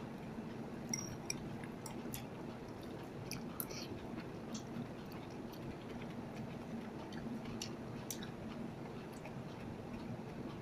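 A person chewing with scattered small wet mouth clicks, while eating bread and noodles, over a steady low hum.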